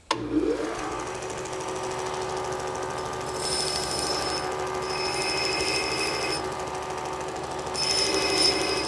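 An electric power tool's motor spinning up in the first second and then running steadily, with several stretches of higher-pitched rhythmic whirring on top, the longest a little over a second.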